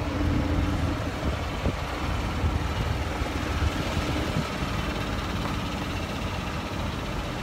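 Golf cart driving along a resort path: steady low rumble of the moving cart, its motor and tyres running at an even speed.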